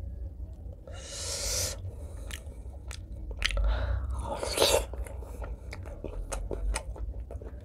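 Close-miked mouth sounds of a person eating braised pork leg curry with rice by hand: wet chewing and lip smacks, with a louder bite about four seconds in.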